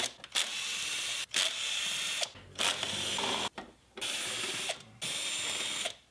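Ratchet wrench clicking as a bolt is undone, in about six runs of clicks under a second each, with short pauses between strokes.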